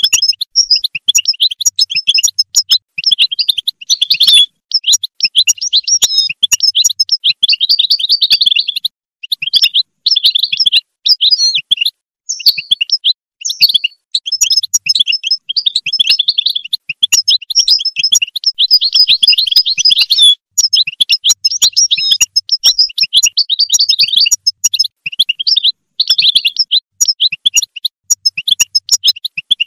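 European goldfinch singing: a long, fast, tinkling twitter of rapid notes in near-continuous phrases, with a few short breaks.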